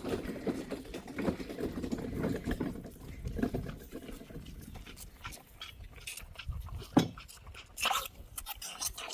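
An animal panting, with scattered clicks and rustling.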